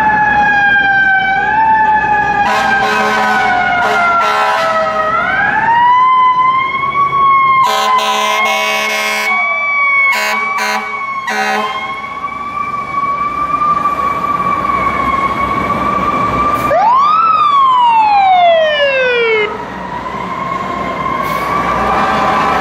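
FDNY fire engine and ladder truck sirens wailing, rising and falling in pitch as the rigs pull out and drive past. A run of loud air horn blasts comes about eight to eleven seconds in, and near the end a siren rises sharply and winds down in one long falling glide.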